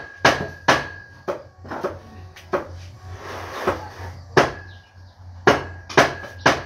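Cleavers chopping through roast pork: sharp, irregular chops, about a dozen, with a short lull around the middle.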